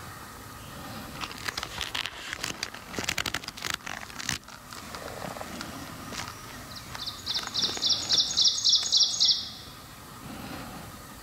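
Footsteps crunching through dry leaf litter in a run of sharp crackles, then a songbird sings a rapid series of about ten high notes, the loudest sound, near the end.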